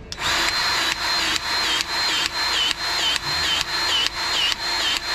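Cordless battery-powered grease gun motor running with the trigger held, pumping in a steady rhythm of about two strokes a second, a high whine dipping at each stroke.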